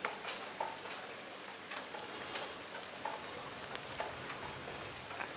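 Rain pattering steadily, with scattered small ticks and a few faint, short peeps.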